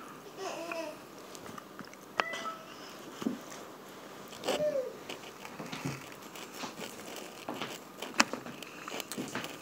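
Close-up eating sounds: a fried chicken strip being handled, dipped and bitten over a styrofoam takeout container, with a few sharp clicks and some short murmured vocal sounds.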